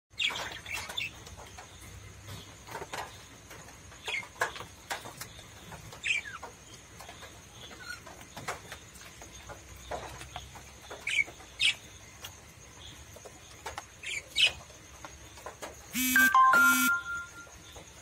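A flock of small parrots, lovebirds and budgerigars, chirping: short, sharp, falling chirps come about once a second, with a louder, longer two-part call near the end.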